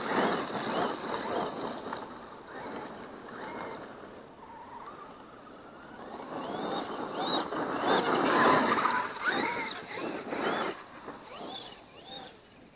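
Traxxas X-Maxx electric RC monster truck being driven, its brushless motor whining up and down in pitch with repeated throttle bursts over a rushing noise of tyres on the ground. The loudest burst comes about eight seconds in, and it fades near the end.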